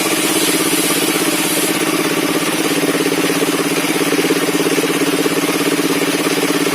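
Engine of a circular sawmill running steadily with a fast, even pulse. A high hiss over it eases off a little under two seconds in.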